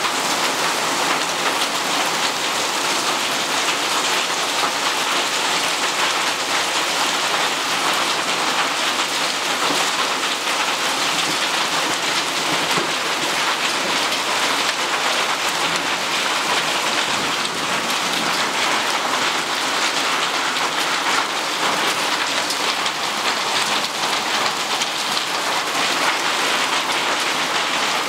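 Small hailstones and rain pelting clay roof tiles in a dense, steady clatter of countless tiny impacts.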